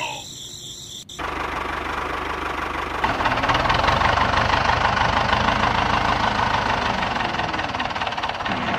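Small electric motor of a miniature DIY toy tractor whirring steadily. It starts at a cut about a second in and gets louder around three seconds in.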